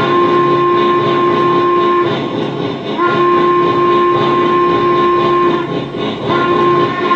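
Railsounds sound system of a Lionel Legacy C&O 2-6-6-2 Mallet model steam locomotive blowing its steam whistle: two long blasts, then a short one near the end, over the steady sound of the engine working.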